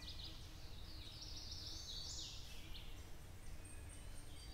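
Woodland birds singing: a run of high, varied chirping phrases over faint steady background noise.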